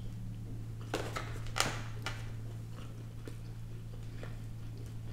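Quiet eating noises: a few sharp mouth clicks and smacks and the handling of sticky glazed chicken tenders in a paper box, the loudest click about a second and a half in, over a steady low hum.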